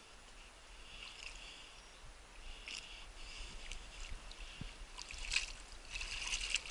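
Water splashing and dripping from paddle strokes as a small boat moves through still water, with a cluster of sharper splashes and knocks in the second half.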